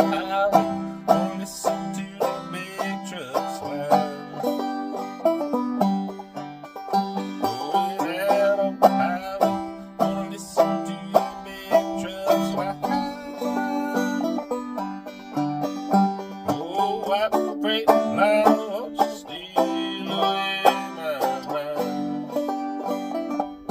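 Banjo played clawhammer style: a steady run of plucked, ringing notes and strums carrying the tune, with no singing.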